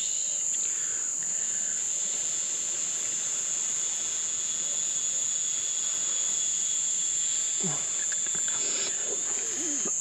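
Crickets chirring in a steady, high-pitched night chorus.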